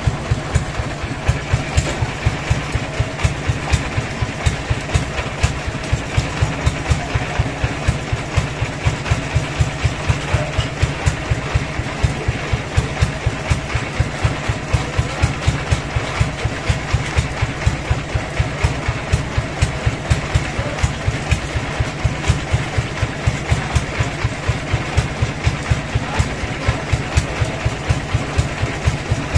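A sawmill's engine running steadily at idle, with an even, regular beat of pulses several times a second.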